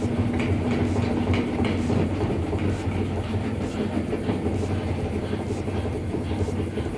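Washing machine on its spin cycle: a steady hum from the spinning drum, with a light knock recurring roughly once a second. The knock comes from a suspension rod sitting low, which lets the tub bang as it spins.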